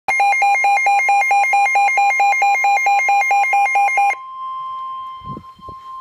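NOAA weather alert radio sounding its warning alarm for a tornado warning: a loud, rapid electronic beeping of about five beeps a second that stops after about four seconds. A fainter steady high tone runs under the beeping and carries on after it, with a few soft knocks near the end.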